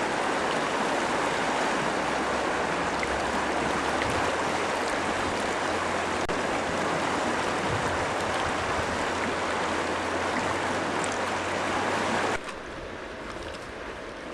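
Arkansas River water rushing steadily through a rapid around a kayak. About twelve seconds in it drops abruptly to a quieter wash of moving water.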